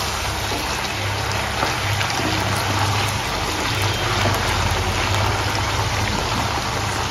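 Whole peeled baby potatoes frying in hot mustard oil over a low flame: a steady sizzle with fine crackling, over a low steady hum.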